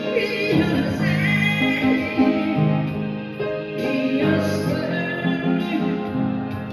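Upright piano played with both hands, a melody over held chords that change every second or so.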